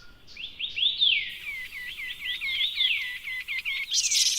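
A songbird calling: a rapid run of short whistled notes, each sliding down in pitch. A high hiss comes in near the end.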